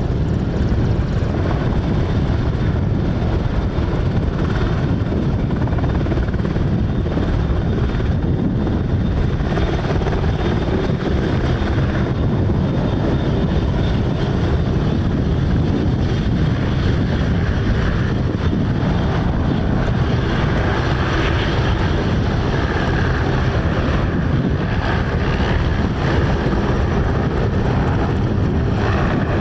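Royal Navy Merlin helicopter running on the ground with its rotors turning: a loud, steady noise of the turbine engines and rotor.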